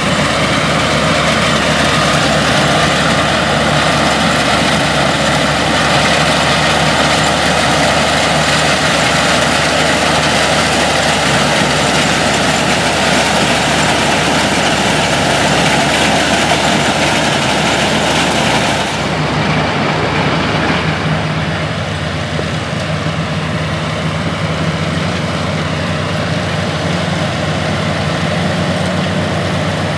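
Vintage farm tractor engine running steadily under load while pulling a mounted corn picker through standing corn, over a broad rushing noise. About two-thirds of the way through, the sound switches abruptly to another tractor and corn picker with a steadier, lower engine note and less hiss.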